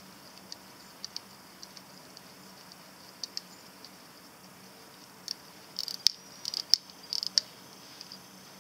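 Irregular small metallic clicks from the crown of an H. Moser pocket-watch movement being turned to set the hands. The clicks are sparse at first, with a denser, louder run from about five to seven and a half seconds in.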